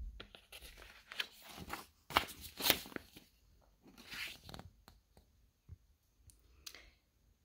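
Paper page of a large picture book being turned and smoothed flat: a few short rustles and crinkles, the loudest about two seconds in.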